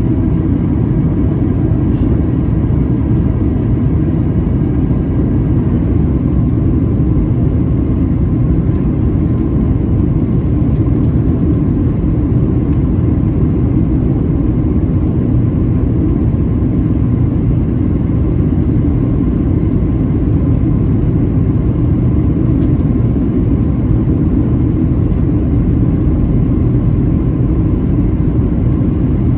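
Steady cabin noise inside a Boeing 737-700 on descent: the even rush of airflow and the hum of its CFM56-7B turbofans heard from a window seat, with a faint steady engine whine.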